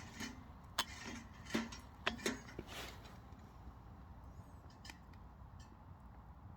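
Oak logs burning low in a wood stove: scattered sharp crackles and pops, several in the first three seconds, then only an occasional tick.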